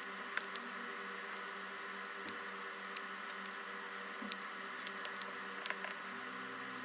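Scattered light clicks and taps of small repair tools and phone parts being handled, over a steady hiss and low electrical hum.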